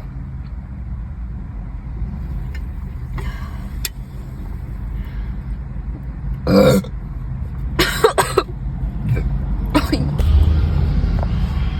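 A young woman burping: a loud short belch about six and a half seconds in, then quicker throaty sounds near eight and ten seconds, over a steady low rumble.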